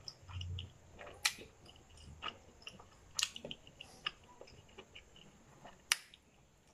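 Close-up mouth sounds of eating momo dumplings: wet chewing with intermittent lip smacks and short sharp clicks, the sharpest near the middle and just before the end.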